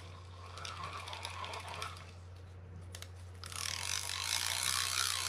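Freshly serviced and greased Mitchell 302 spinning reel being cranked by hand, its gears turning with fine rapid clicking. From about three and a half seconds in it grows much louder and denser, as if cranked faster.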